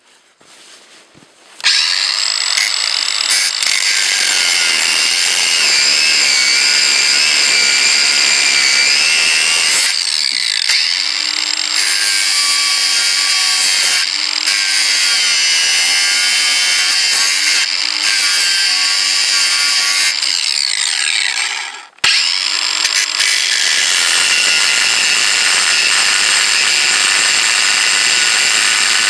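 Ryobi power tool cutting off the heads of the slotted screws that hold a cast-iron wood stove together: a loud, high-pitched whine of metal being cut, which stops briefly about three-quarters of the way through and spins back up.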